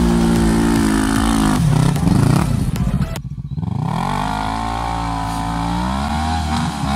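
Quad bike engine held at steady revs, then easing off with its pitch dropping. After a sudden break, a quad engine revs up, climbs hard at high revs, and falls off slightly near the end.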